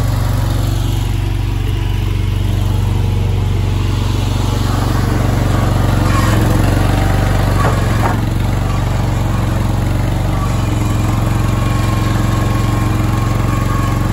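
The small gasoline engine of a Boxer 427 mini skid steer runs steadily. It is fitted with a freshly cleaned carburettor and a new muffler.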